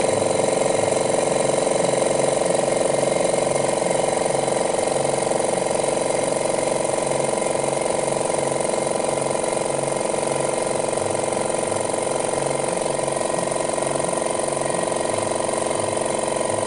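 MINBAO 220 V oil-free 'silent' air compressor running steadily with its intake filter-silencer removed: a loud, even drone with a fast regular pulse, reading about 82 dB on the sound meter.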